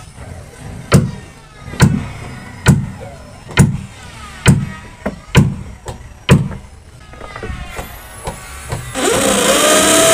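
Background music with a heavy beat about once a second. Near the end a corded electric drill starts up, its whine rising as it spins up, and runs loudly as it bores into the wooden boat hull.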